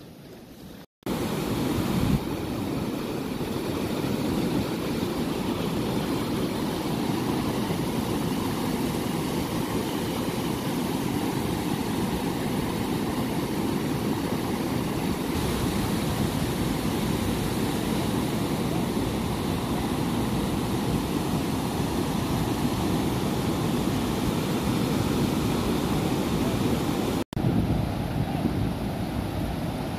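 Surf washing onto a sandy beach, heard as a steady rushing noise mixed with wind buffeting the phone's microphone. The sound cuts out for a moment about a second in and again near the end.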